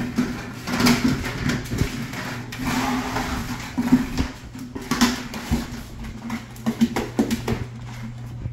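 Rottweiler puppies at rough play with an overturned plastic bucket on a hardwood floor: repeated knocks and scrapes of the bucket against the boards, mixed with scrabbling and short puppy growls.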